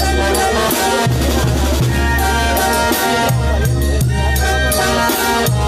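Loud Latin dance music from a band: drums over a heavy, pulsing bass, with brass carrying the tune.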